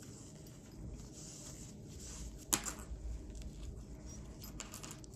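Quiet handling noise of an elastic suspender strap being wrapped around a dog's collar, with one sharp click about halfway through.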